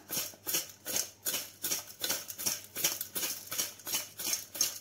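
Cut citron pieces and rock salt rattling inside a ceramic jar as it is shaken by hand, in quick even strokes about three a second, mixing the salt through the fruit for pickling.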